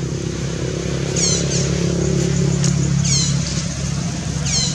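A motor vehicle engine, likely a motorbike, running steadily with a low hum that grows a little louder about a second in. A high, falling chirping call repeats three times over it, about every two seconds.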